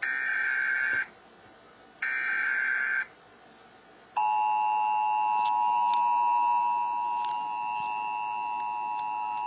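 Emergency Alert System tornado warning on a TV broadcast, played through a laptop speaker. The last two of the three one-second buzzy data bursts of the alert header sound a second apart, then about four seconds in the steady two-tone attention signal starts and holds.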